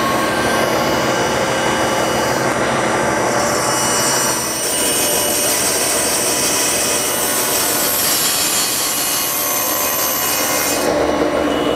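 Table saw running while a long board is fed lengthwise through the blade, ripping a narrow strip off it. The high cutting sound lies over the motor's steady run and drops away about a second before the end, as the board clears the blade.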